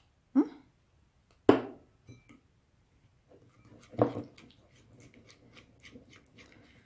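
A few sharp knocks as a small plastic paint bottle is handled and set down on a table, in the first two seconds and again about four seconds in. After that come faint quick ticks of paint being stirred into glue in a bowl.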